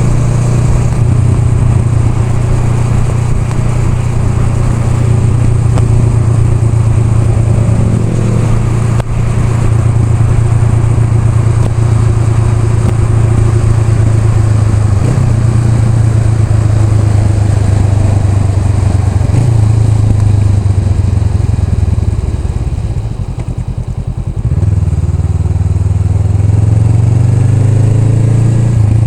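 Honda Rebel 500's parallel-twin engine running under way at a steady pitch with small shifts in speed. It eases off and goes quieter about three-quarters of the way in, then the pitch rises as it accelerates near the end.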